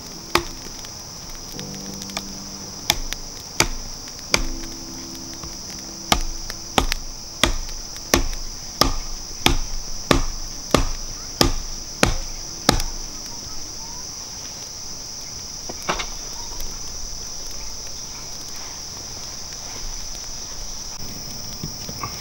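Wood being chopped: a few scattered blows, then a steady run of about eleven sharp strokes, roughly one every two-thirds of a second, stopping about 13 seconds in. Under it, a steady high-pitched drone of forest insects.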